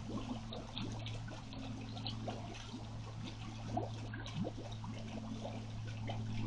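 Water trickling and gurgling, with many quick bubbling chirps, over a steady low hum.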